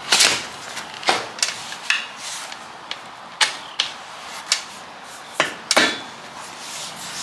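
A run of sharp, irregularly spaced clicks and knocks: handling sounds of an e-bike's battery pack and flip-up saddle as the saddle is swung down and settled back into place over the battery.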